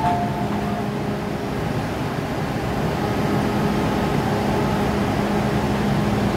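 MTR M-Train running a steady hum of its onboard equipment while standing, with a two-note electronic tone in the first second. The hum grows a little stronger about halfway through.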